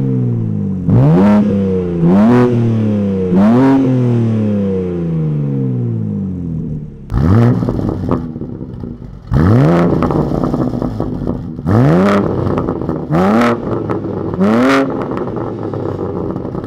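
BMW G80 M3 Competition's twin-turbo inline-six revved through a Dähler cat-back exhaust in short, repeated blips, each sharply up and falling back to idle. Three blips come close together in the first few seconds, then after a short gap about four more, spaced one to two seconds apart.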